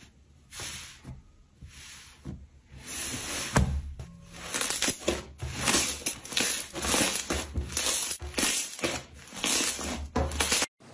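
Hands squeezing and pressing slime close to the microphone: a series of short squishing strokes, sparse at first, then quicker and louder from about three seconds in, stopping abruptly near the end.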